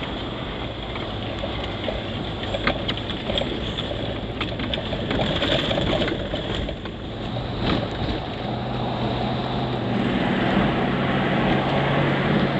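Car on the move: steady engine hum and road noise, with scattered clicks and knocks. The hum grows stronger near the end.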